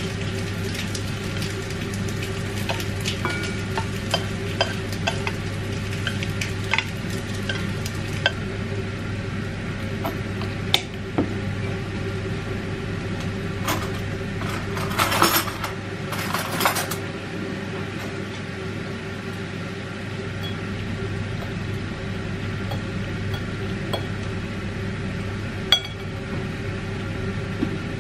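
A metal spoon scraping and clinking against a pot and a ceramic bowl as food is served, in many small clicks with a louder flurry of clatter about halfway through and a single sharp clink near the end. A steady low hum runs underneath.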